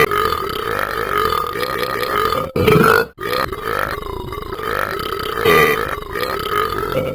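A person burping in long, drawn-out burps that break off briefly twice, about two and a half and three seconds in, each time starting again.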